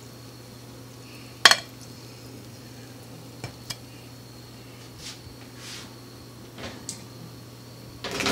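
Dishes and utensils clinking: one sharp clink about a second and a half in, then a few lighter clicks and short brushing sounds, with a louder clatter starting near the end, over a steady low hum.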